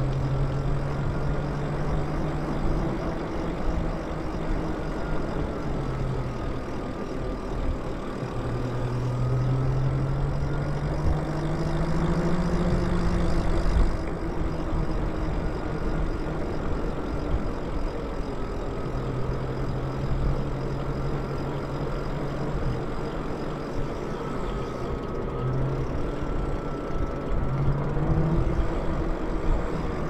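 Electric bike motor whining while riding, its tones drifting up and down with speed and cutting in and out every few seconds, over constant wind rush and tyre noise.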